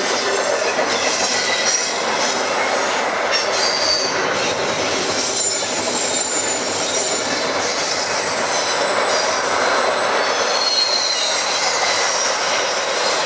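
Norfolk Southern intermodal freight train's double-stack well cars rolling past, a steady loud rumble of wheels on rail with high-pitched wheel squeals that come and go.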